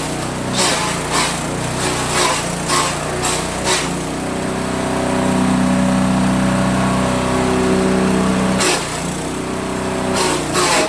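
Small engine driving a multi-purpose chopper machine as it grinds terasi (shrimp paste), running steadily with a series of short noisy surges in the first four seconds and two more near the end.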